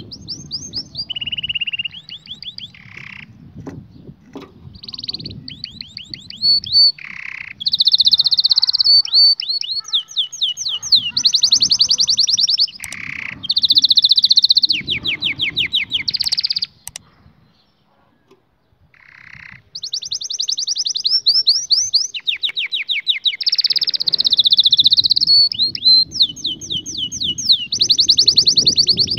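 Domestic canary singing: fast trills and rolls, each phrase a second or two long at a new pitch, with a pause of about two seconds a little past the middle.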